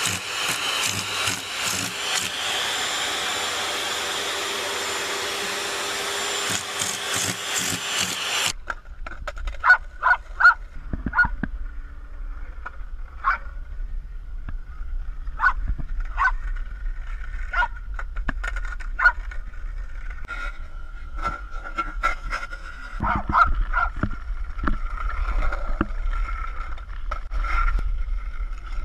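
A vacuum cleaner running steadily, cutting off abruptly about eight and a half seconds in. Then low wind rumble on the microphone while a small dog barks in short bursts again and again.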